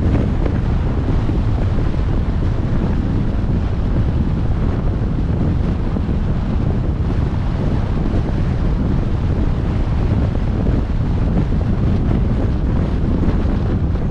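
Wind rushing over the microphone of a moving vehicle, heard as a steady, loud low rumble.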